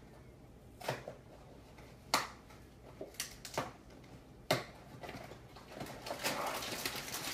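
A cardboard cereal box being opened: several sharp rips as the glued flaps are pulled apart, then the plastic inner bag crinkling as it is worked open.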